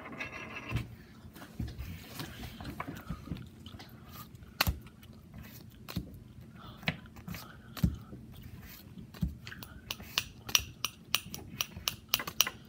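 Scattered sharp clicks and taps from trading cards being handled, coming much faster about ten seconds in.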